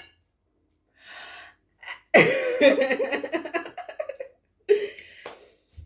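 A woman coughing and crying out without words: a short breathy sound, then a loud, wavering cry about two seconds long, and a shorter burst near the end.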